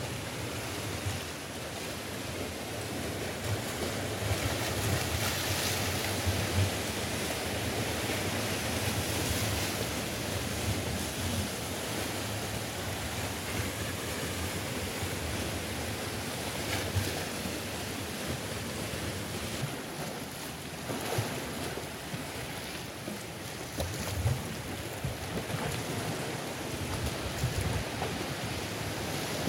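Sea waves breaking and washing over the shoreline rocks, the surf swelling and easing every few seconds, with gusts of wind rumbling on the microphone.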